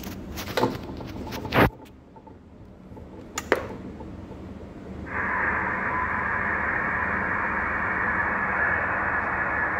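ICOM IC-725 HF receiver switched on, with a sharp click near the start; about five seconds in, a steady hiss of band noise from its speaker on 7 MHz USB starts, the noise used as the reference for checking its S-meter.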